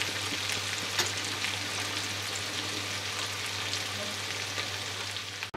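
Chicken pieces sizzling steadily in oil in an aluminium karahi, at the end of frying with the dish ready, with a few light knocks of a wooden spoon.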